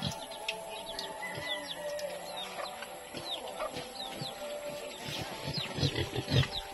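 Small birds chirping over and over in short falling chirps, with chickens clucking. Near the end comes a run of loud low thumps.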